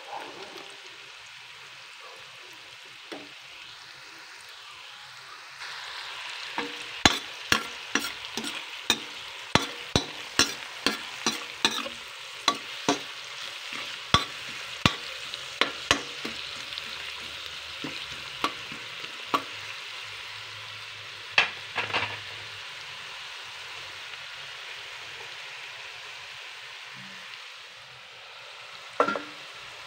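Carrot strips, onion and garlic sizzling steadily in a stainless steel pan while a metal spatula stirs them, clacking sharply against the pan about twice a second for much of the time, with a few last knocks near the end.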